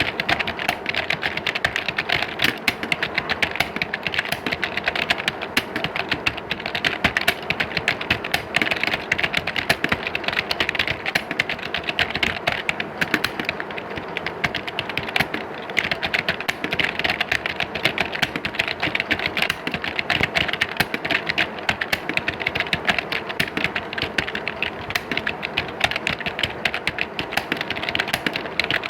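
Many computer keyboards being typed on at once: a dense, unbroken clatter of key clicks, as in an exam hall full of typists.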